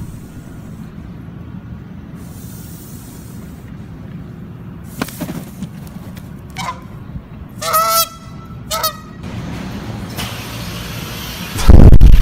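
Canada goose giving several short honks between about 5 and 9 seconds in as it charges with wings spread, defending its nest. A loud low rumble near the end.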